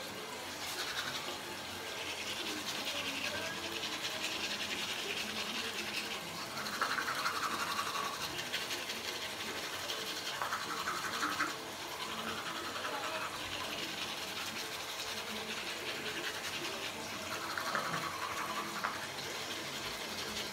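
Teeth being brushed with a manual toothbrush: a continuous wet scrubbing of the bristles, with a few louder stretches.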